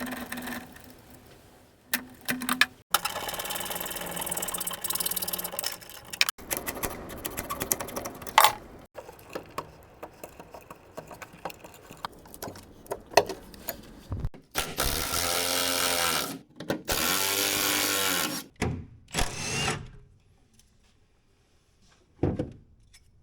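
A power screwdriver runs in several separate spells, its whine rising and falling as screws back out, with sharp clicks and rattles of hand tools and small parts in between. It falls nearly quiet near the end.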